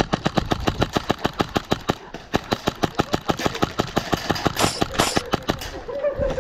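Airsoft rifle firing a long rapid string of shots, about seven a second, stopping near the end.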